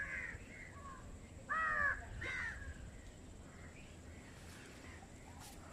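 Crows cawing: several short calls, the loudest about a second and a half in, then fainter caws further off.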